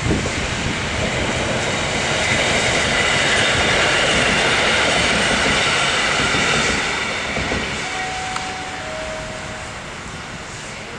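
A train running past along the station tracks: rolling noise builds to a peak, then fades as it moves away. Two brief high squeals come near the end.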